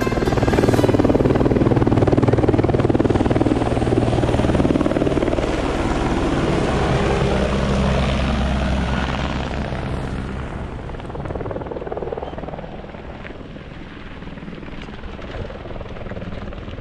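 Helicopter flying low past, its rotor and engine loud for about the first ten seconds, then fading away into the distance.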